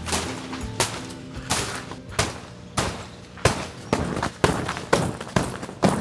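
A tent being shaken out to dry, its fabric snapping sharply about every two-thirds of a second, over soft background music.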